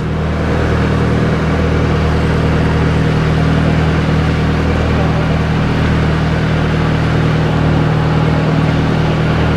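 Engine of a motorized outrigger canoe (bangka) running steadily at cruising speed, a constant low drone with water and hull noise over it.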